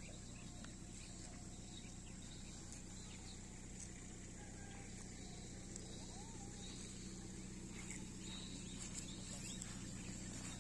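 Faint rural outdoor ambience: a steady low hum and a steady high insect buzz, with a few faint bird calls, one of them a short glide about halfway through.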